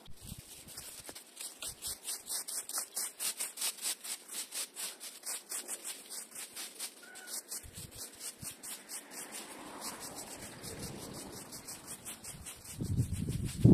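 A rake scratching through dry leaves and grass, over a fast, even, high-pitched ticking. A louder low scrape comes near the end.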